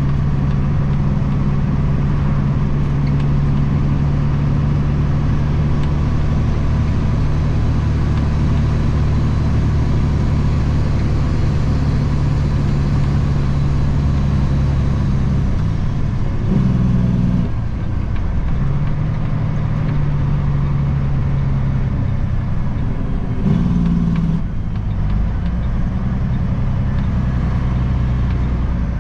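Kenworth W900 dump truck's diesel engine running steadily under way, heard from inside the cab. About 17 and 24 seconds in, the engine note changes and briefly revs up during gear changes on the 13-speed transmission, then settles back to a steady run.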